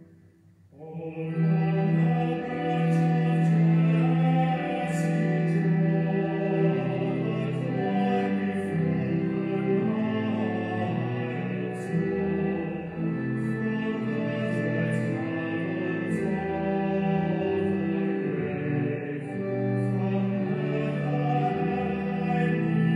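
Recorded church choral music: voices singing slow, long-held notes, coming in about a second in after a brief silence.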